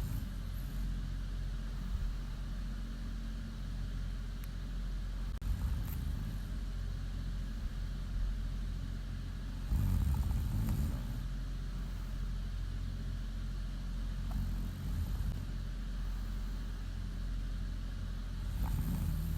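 A woman snoring in her sleep: deep snores near the start, about ten seconds in and near the end, over a steady low hum.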